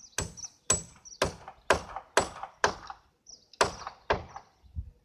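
Hammering from a construction site: sharp, even knocks about two a second, with a short break about three seconds in.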